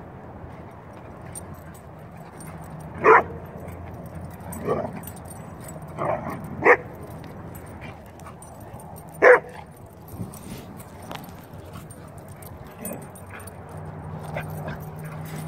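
Dogs barking during rough play over a ball: about five short, sharp barks, the loudest a little after three seconds in, another pair around six seconds and one more near nine seconds.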